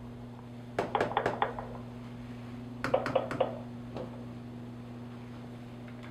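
Telephone ringing: two short, rapid trilling rings about two seconds apart, from the call placed by the door phone's one-touch call button. A low steady electrical hum runs underneath.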